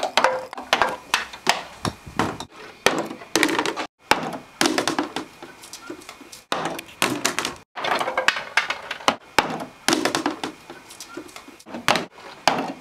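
Golf balls running down a homemade wooden golf-ball run, knocking and clacking against the boards, ramps and drops in quick, irregular succession.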